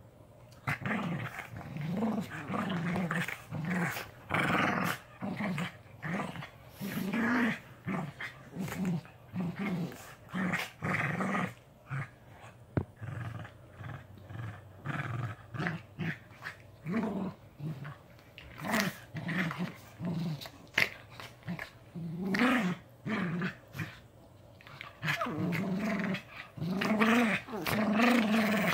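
Two puppies play-fighting, growling in short repeated bursts. The growls run together and get louder near the end.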